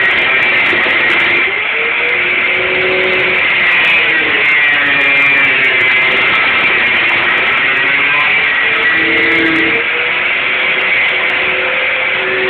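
Angle grinder with a cutting disc slicing through a car's sheet-steel fender along the wheel-arch lip, a steady high grinding whine that shifts slightly as the disc bites.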